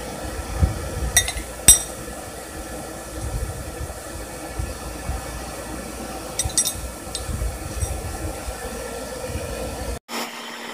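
Steel stock clinking against a steel anvil: two sharp clinks about a second and a half in, then a few lighter ones about six and a half to eight seconds in, over a low rumble.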